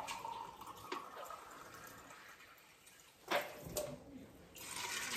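Water running and dripping at a kitchen sink while cups of water are measured out for an Instant Pot, with a few sharp knocks a little after three seconds in and another short rush of water near the end.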